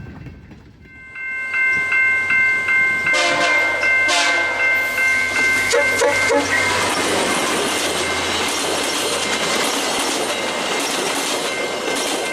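Diesel freight locomotive's multi-chime air horn, starting about a second in as a quick string of short toots, then held as one long blast to the end. Beneath it are a low engine rumble and the clatter of wheels on rail as the train goes by.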